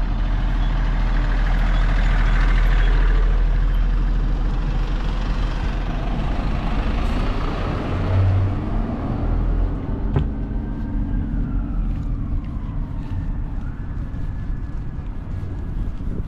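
Street traffic: a heavy vehicle's engine rumbles past, loudest two or three seconds in, and fades by about ten seconds, leaving lighter traffic noise with a faint falling whine.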